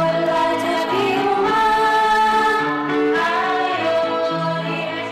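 A child singing a song with keyboard accompaniment, holding long notes over steady chords.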